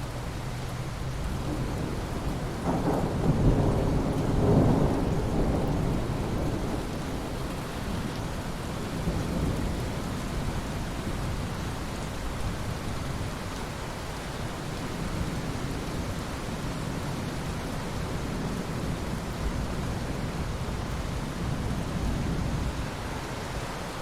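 Thunder rolling over steady rainfall: the rumble builds to its loudest a few seconds in, then trails off into a long low grumble under the hiss of the rain.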